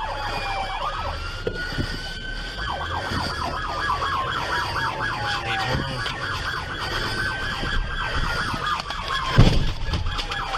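Police car sirens: a slow wail that falls in pitch and sweeps back up, overlapping with a fast warbling yelp through the middle. A short, loud thump near the end.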